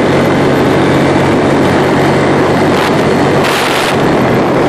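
ATV engine running steadily while riding on a gravel road, with tyre and road noise. A brief hiss about three and a half seconds in.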